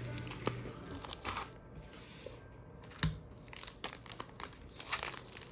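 Foil wrapper of a Panini Hoops basketball card pack crinkling and tearing as the pack is opened by hand. There is a single dull thump about three seconds in, and the crinkling grows denser near the end.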